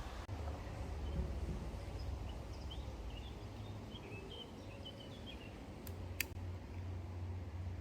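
Outdoor ambience: a steady low wind-like rumble with faint bird chirps in the middle, and two sharp clicks a little after six seconds in.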